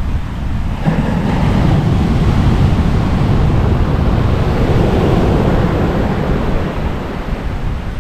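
Heavy, rough sea surf: a wave breaks about a second in and its wash runs on, fading toward the end, over wind buffeting the microphone.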